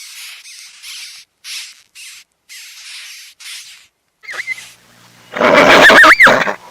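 Animal sounds: a run of short hissing or rasping bursts, roughly two a second, then about five seconds in a louder, harsher call with a squealing glide up and down.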